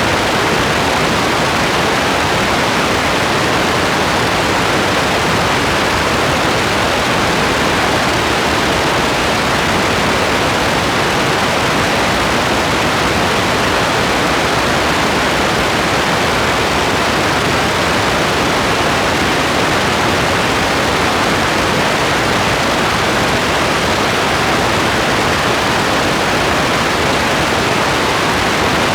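Steady rain falling as an even, unchanging hiss, with no separate drops, thunder or other events standing out.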